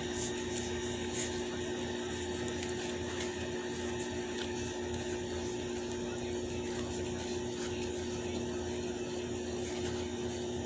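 Steady low hum with a faint hiss, and a few faint clicks in the first second or so.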